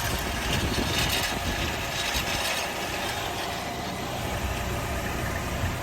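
2015 Nissan Altima 2.5's four-cylinder engine running with a mechanical rattling noise, brightest about a second or two in: an unexplained rattle on a car with 75,000 miles.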